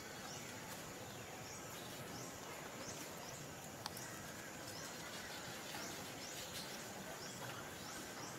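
Outdoor background noise with a short, high, falling chirp repeated roughly once a second, and a single sharp tick about halfway through.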